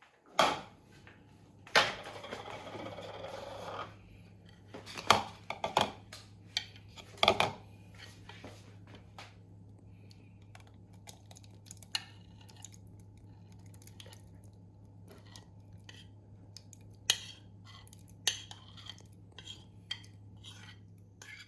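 Kitchen utensils and dishes clinking and knocking during food preparation, with a denser scraping stretch a couple of seconds in. A steady low hum runs underneath.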